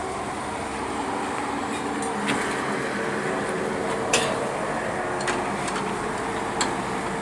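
Small air-cooled engine of a homemade car running steadily, with a few sharp clicks or knocks over it.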